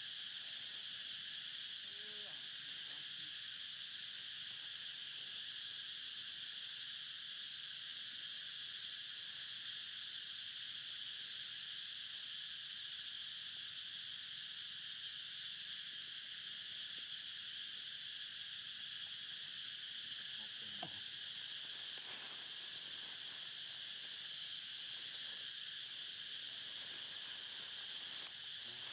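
Insects droning steadily in a constant high-pitched chorus. There is a faint, brief call about two seconds in and another a little past twenty seconds.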